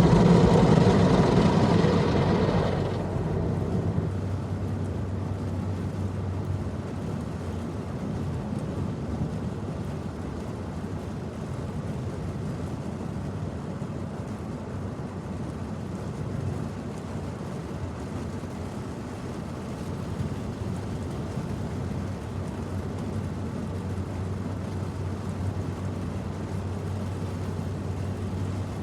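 Automatic car wash machinery running: a loud rushing noise fades over the first three seconds, leaving a steady low hum.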